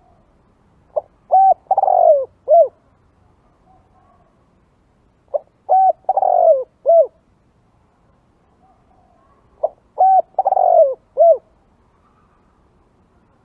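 Spotted dove cooing: its song repeated three times, about four seconds apart. Each phrase is a short note, two short coos, a longer falling coo and a final coo.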